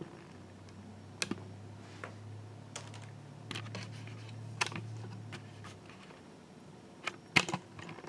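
Irregular single clicks from a Lenovo ThinkPad E545 laptop's keys and buttons as it is operated, with a quick cluster of clicks near the end. A faint low hum sits under the middle seconds.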